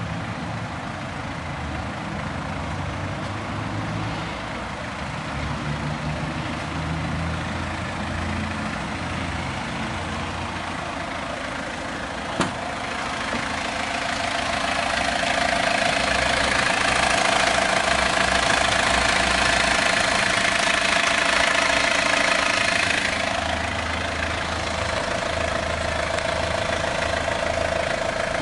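A Mazda Bongo Friendee's 2.5-litre turbo-diesel engine idling steadily. There is a single sharp click about twelve seconds in, and then a hiss with a steady tone rises and holds for several seconds before easing off.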